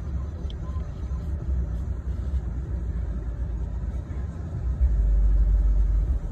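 Low, steady rumble of a car heard from inside its cabin, growing louder for about a second and a half near the end.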